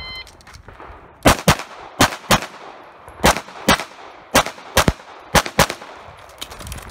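A shot timer gives a short start beep, then a Tanfoglio Stock 2 pistol fires about a dozen rapid shots. The shots come mostly in quick pairs, double-taps, with short gaps between the pairs.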